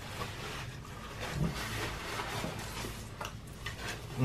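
Eating sounds: chewing, paper napkins rubbing across mouths and a few small clicks of food being handled, fairly quiet.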